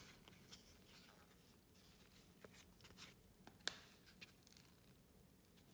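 Near silence with faint rustles and small clicks of trading cards being handled and flipped, and one sharper click about three and a half seconds in.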